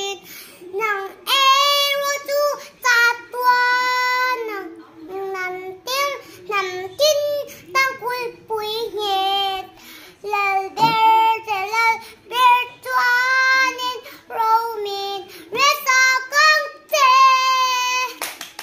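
A young girl singing a song solo, unaccompanied, in a high child's voice, with phrases broken by short pauses and several long held notes.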